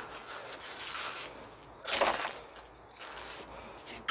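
Rubbing and scraping of scrap iron being handled and pulled off a magnet, with one louder, short scrape about two seconds in.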